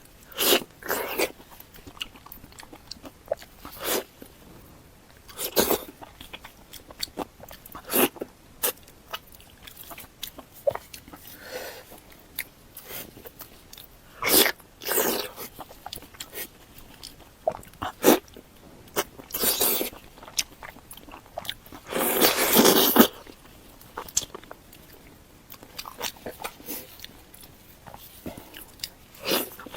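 Close-miked eating sounds: separate bites and chewing with wet mouth noises, scattered irregularly, and one longer, louder noisy sound lasting about a second around two-thirds of the way through.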